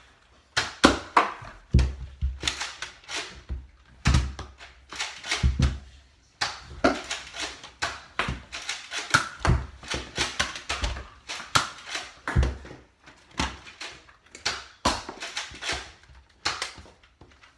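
Nerf blasters being primed and fired, with foam darts hitting things: many sharp clacks and thuds at an uneven pace.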